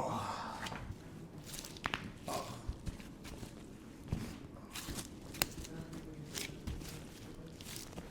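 A short groan from the patient trails off at the start. Then come scattered soft clicks and taps, a second or two apart, from the chiropractor's hands and the patient shifting on the treatment table.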